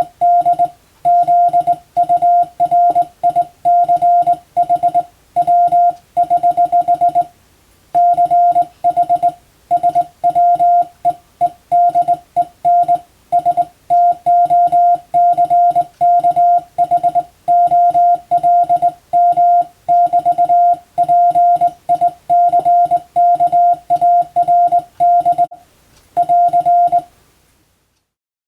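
Morse code (CW) sent as a single steady tone keyed on and off in quick dots and dashes, grouped into characters and words. There is a longer gap about seven seconds in, and the keying stops shortly before the end.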